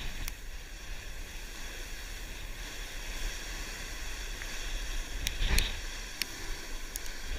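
Steady rushing noise of a fast board slide down loose volcanic gravel: wind buffeting the microphone and the board scraping through the grit, with a few sharp ticks of stones striking in the second half.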